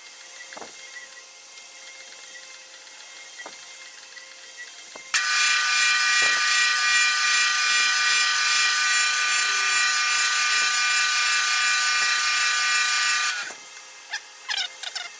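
Wood lathe spinning a post oak pen blank, with a paper towel pressed against the turning wood about a third of the way in: a loud, steady rubbing hiss with high whining tones for about eight seconds while the finish is buffed on. It stops sharply, leaving the quieter lathe and a few short squeaks near the end.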